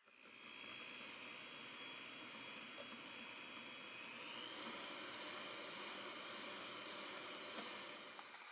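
Electric hand mixer running, its beaters whisking egg whites in a stainless steel bowl: a steady motor whine over a whooshing churn. About four seconds in the whine steps up in pitch and the sound gets louder as the speed is turned up to medium-high for the last stage of whipping the meringue.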